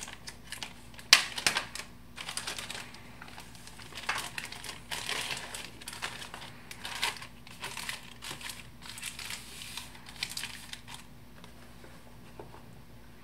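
Plastic specimen bag crinkling and rustling as it is handled and opened and a box is slid out of it, in irregular bursts that stop about eleven seconds in.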